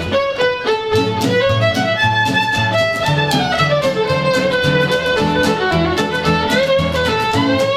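Fiddle playing a swing melody line that slides up and down, over a steady strummed acoustic guitar rhythm.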